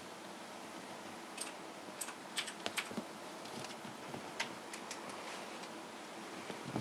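Kittens' paws and claws scuffling on carpet and a fabric cat cube: irregular light clicks and scuffs over a steady faint hiss.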